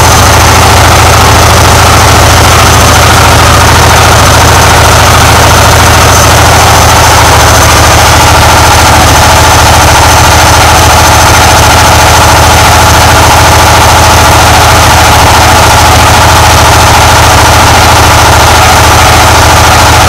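Old front-loading washing machine running a spin cycle, a loud, steady rumble with a dense, rapid rattle, running like a train.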